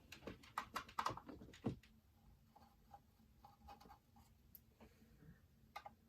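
Light clicks and taps of hands handling a small PC case and its parts: a quick run of them in the first two seconds, then only a few faint ticks, with a couple of sharper clicks near the end.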